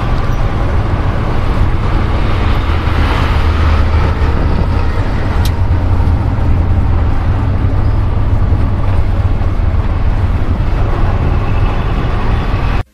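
Auto-rickshaw engine running as it drives through street traffic, heard from inside the open cabin: a loud, steady low rumble mixed with road and traffic noise. It cuts off suddenly at the end.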